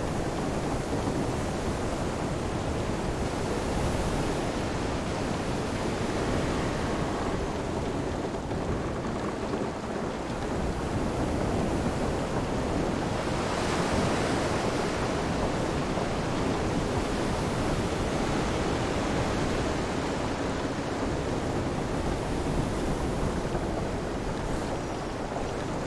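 Storm ambience: steady wind and surf with rain, swelling into a stronger gust or wave about halfway through.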